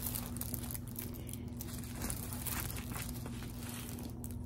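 Clear plastic cover film on a diamond painting canvas crinkling and rustling as the large canvas is lifted and handled, in uneven crackles over a faint steady hum.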